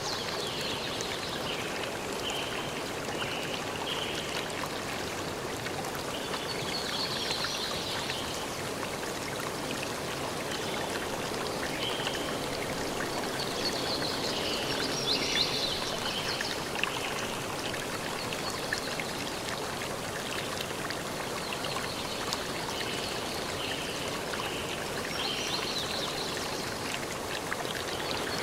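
Water of a stream or brook flowing steadily, with brief higher-pitched bursts every few seconds.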